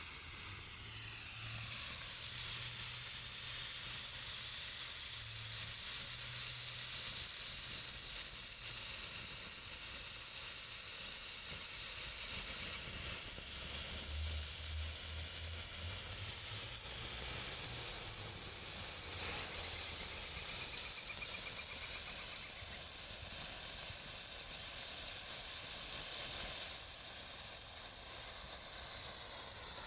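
Homemade sparkler fuse of potassium nitrate, sugar and sawdust burning with a steady high hiss.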